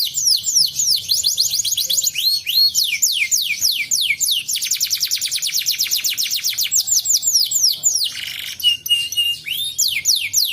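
Domestic canary singing a fast, continuous song of rapidly repeated downward-sweeping notes. About eight seconds in the trill breaks for a few short steady whistles, then resumes.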